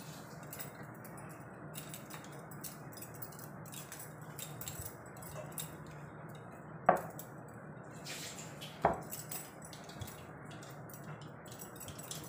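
Quiet handling sounds as a cloth is spread and smoothed over a low wooden seat, over a steady low hum, with two sharp clinks about seven and nine seconds in.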